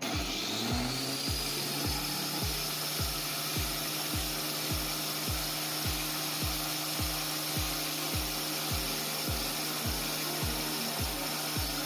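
Angle grinder turned into a makeshift wood-ripping saw, cutting through a piece of wood: a steady hiss of the blade in the wood over a high motor whine that rises in the first second and then holds. Background music with a steady beat plays underneath.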